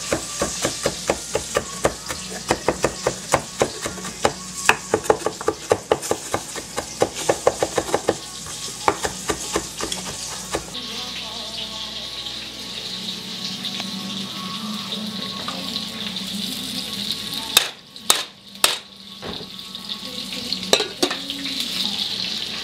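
Chef's knife chopping pickled jalapenos on a wooden cutting board, quick even knocks at about four strokes a second for about ten seconds before stopping. Food sizzles steadily in a frying pan underneath throughout.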